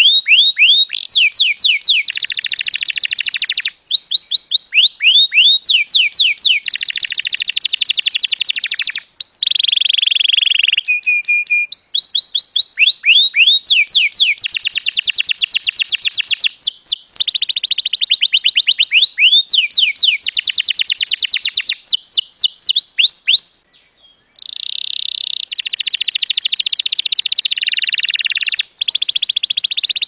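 Domestic canary singing a long, loud song of fast trills: phrases of rapidly repeated notes, each sweeping down in pitch, changing every second or two. The song breaks off briefly about three-quarters of the way through, then resumes.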